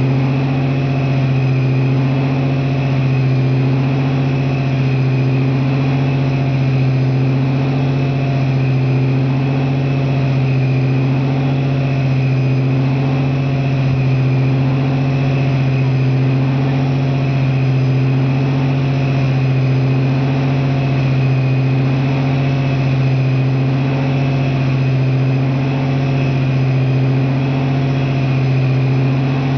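Napier T9-29 Baby Deltic, a nine-cylinder opposed-piston two-stroke diesel, running steadily at a constant speed in a stationary locomotive, with a deep, even hum.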